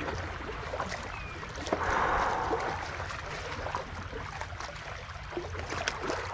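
Seawater sloshing and washing among concrete tetrapod breakwater blocks, with a louder splash about two seconds in and a few small clicks.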